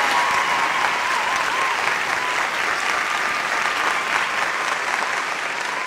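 Audience applauding steadily in a large hall, with a thin wavering tone heard faintly over the clapping.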